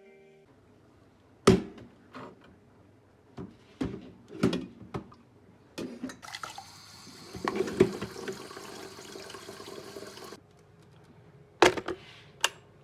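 Stainless-steel electric kettle being handled with several knocks and clatters, then filled from a kitchen tap: a steady rush of running water for about four seconds. Near the end there are sharp clicks as it is set back on its base and switched on.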